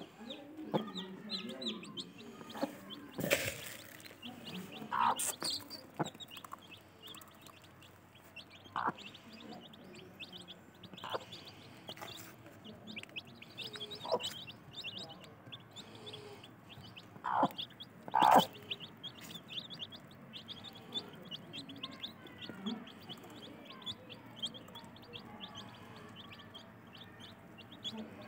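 Aseel hen clucking softly while her young chicks peep almost constantly, with several louder short sounds now and then.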